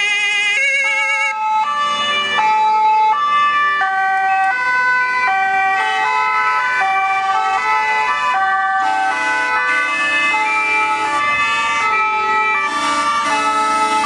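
Several German two-tone emergency sirens (Martinshorn) sounding at once from approaching fire brigade vehicles. Each one alternates between a high and a low note, and they overlap out of step at different pitches. A fast warbling siren stops about a second in.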